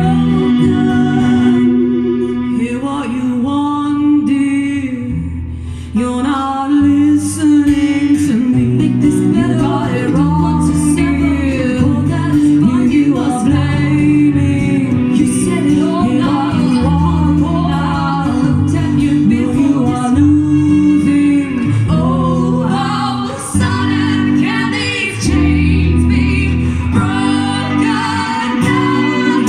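Live band music: women singing over guitar with a steady bass line.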